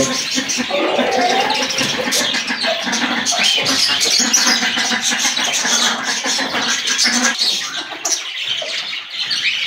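Many small caged birds chattering and chirping together, a dense, steady din of short high calls.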